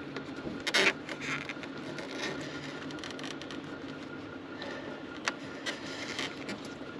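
Scraping and clicking of metal parts as the diesel fuel filter is worked out of its mount, with a sharp knock about a second in and a few lighter clicks, over a steady low hum.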